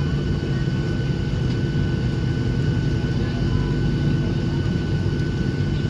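Steady aircraft noise inside a Boeing 737-800 cabin at the stand: a constant low rumble with a steady high whine, and faint passenger voices under it.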